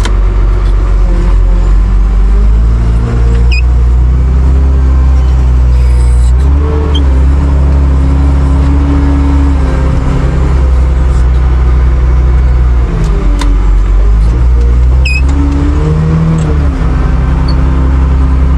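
A loader's engine running hard and steadily, its revs dropping and rising again several times as the machine works its bucket, loading agricultural gypsum into a spreader. A few faint short squeaks sound over it.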